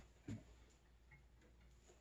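Near silence: room tone, with one soft knock about a third of a second in.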